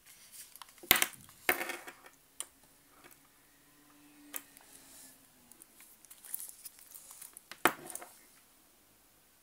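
A wristwatch being handled: a few sharp clicks and clatters, the loudest about a second in, half a second later and near the end, with lighter ticks and rustling between.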